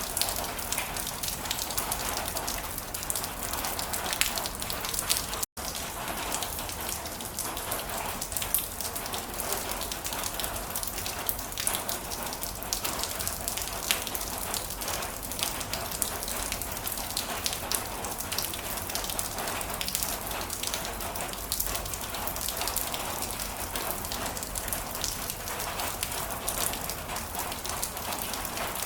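Heavy rain falling: a steady hiss thick with the sharp ticks of individual drops striking a surface. The sound drops out for an instant about five seconds in.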